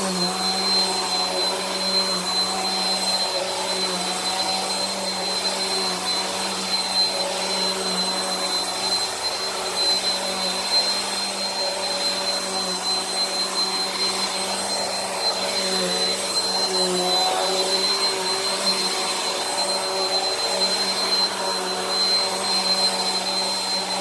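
Bissell Powerforce Helix upright vacuum running steadily over carpet, with a constant high whine over its lower hum. Its tone wavers slightly as it is pushed back and forth.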